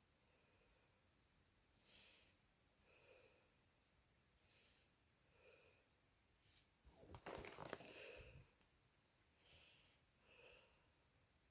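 Faint breathing close to the phone's microphone, a soft puff about every second. About seven seconds in, a louder crackling rustle lasting a second or so as the cardboard box is handled and turned.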